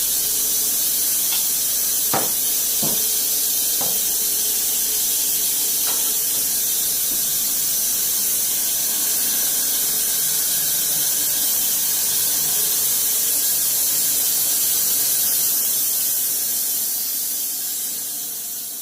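Sawmill blade cutting steadily through a log, a hissing rasp with a few sharp knocks about two to four seconds in. The sound fades away near the end.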